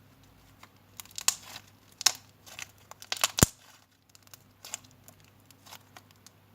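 Slime mixed with clay being stretched and squeezed by hand, giving irregular crackles and pops, with one sharper knock about three and a half seconds in.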